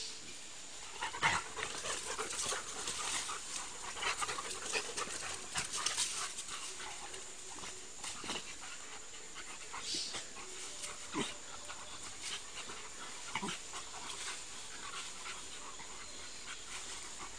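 Dogs panting at play, fast irregular breaths mixed with scattered light clicks and scuffles.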